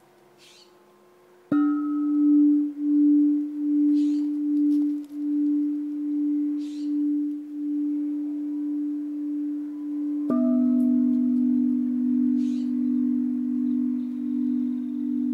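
Large polished-aluminium tubular wind chimes tuned to an E minor pentatonic scale, struck by a leather-wrapped stone striker. A strike about a second and a half in leaves one tube ringing on with a slow pulsing. About ten seconds in, a second strike adds a lower note, and the two ring together.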